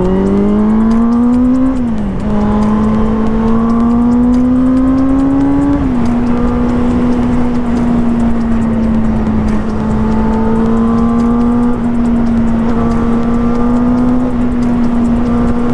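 Benelli TNT 600i's inline-four engine accelerating hard from low revs: the note rises, drops with an upshift about two seconds in, climbs again and drops with a second upshift about six seconds in, then holds steady at cruising speed. It pulls without much low-down torque, as four-cylinders do.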